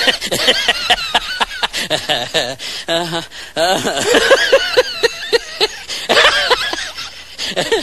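People laughing and chuckling in quick repeated peals, with a short lull about three seconds in.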